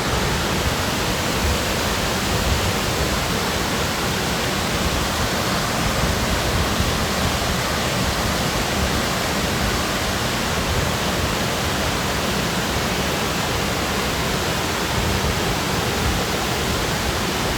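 Crystal Creek waterfall rushing, a steady, unbroken roar of falling water.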